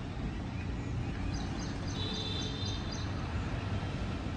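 Steady low outdoor background rumble, with a small bird calling a quick run of high chirps between about one and three seconds in.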